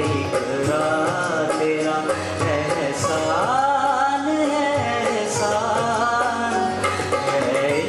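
A man singing an Urdu tarana into a microphone, in long melodic phrases that slide in pitch.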